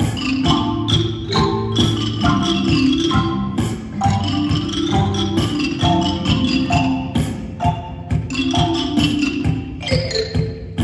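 A school music ensemble performing live: a quick, rhythmic piece of struck, pitched percussion over a steady bass.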